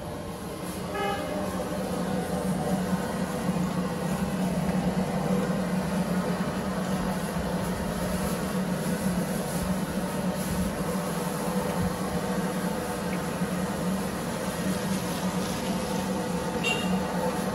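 Noodles deep-frying in a large wok over a street stall's burner: a steady low roar under an even hiss of sizzling oil. A short horn toot about a second in.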